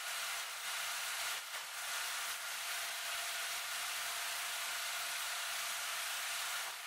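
Faint steady hiss with no low sound beneath it and no distinct events.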